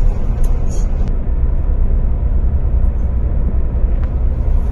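Steady low rumble of a tour coach driving, its engine and road noise heard from inside the cabin, with a few faint clicks in the first second.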